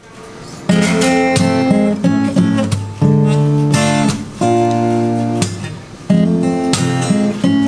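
Acoustic Squier guitar with new Elixir strings, strummed in chords that change every second or so; the loud strumming begins just under a second in. The strings have settled and are holding their tuning.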